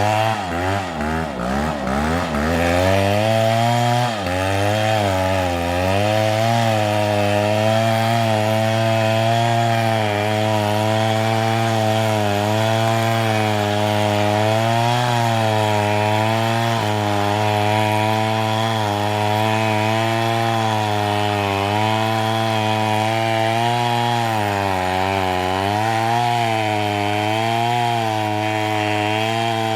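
Chainsaw engine running throughout, its pitch swinging up and down several times in the first few seconds. It then runs fairly steadily with small wavers and brief dips in pitch, as under cutting load.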